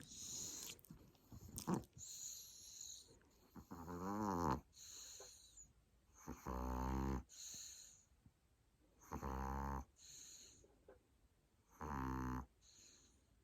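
A sleeping pet snoring: four rasping snores about every two and a half to three seconds, each followed by a soft hissing breath.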